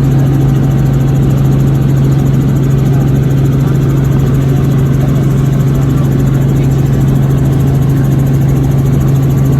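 Helicopter in flight: a loud, steady engine and rotor drone with a constant low hum.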